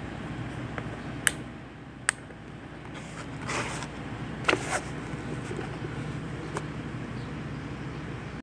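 Steady low background rumble, with two sharp clicks in the first few seconds, a short rustle about three and a half seconds in, and a few lighter clicks after it.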